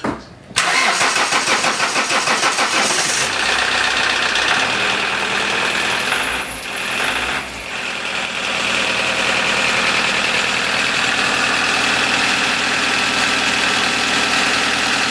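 Toyota D-4D 2.0 common-rail turbodiesel being started: the engine catches about half a second in, runs unevenly for the first few seconds, dips briefly about halfway, then settles into a steady idle. This is the first start after replacing the fuel pump's SCV (suction control) valves and priming the fuel system.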